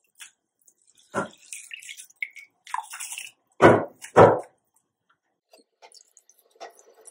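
Handfuls of soaked basmati rice dropped into a pot of boiling water, each landing with a short splash: one about a second in, then two louder ones close together near the middle.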